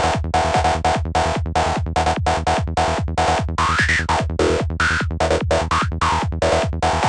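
Albino3 FM synth lead playing a fast, chopped sequence of short notes through a resonant high-pass 'scream' filter, over a low thump on each beat. Partway through, a resonant peak rises and falls.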